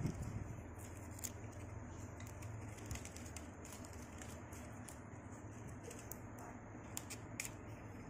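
Fresh coconut leaf strips rustling and crackling as they are handled and fitted together, with scattered light clicks, over a low steady hum.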